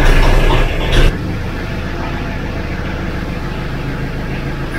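Kubota L3940 tractor's diesel engine running just after a cold start with glow plugs, loud for about the first second, then settling into a steady idle.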